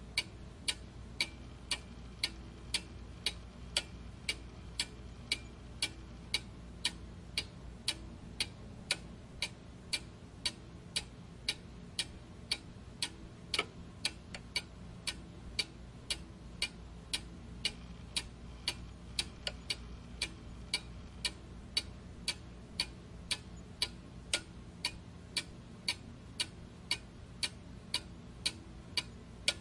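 Clock ticking steadily, about two ticks a second, over a faint low hum.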